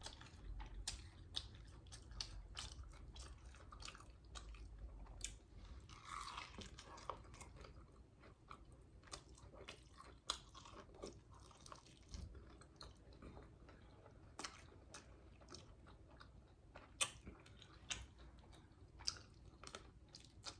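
Faint close-up chewing and biting of flour-dredged fried chicken wings, with irregular sharp crunches and mouth clicks.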